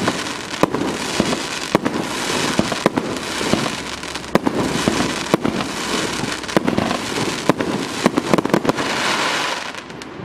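Aerial fireworks going off in a rapid, irregular series: many sharp bangs over a continuous dense crackle, dying away near the end.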